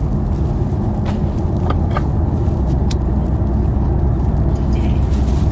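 Steady low rumble of a car in motion, heard from inside the cabin, with a few short clicks about one to three seconds in.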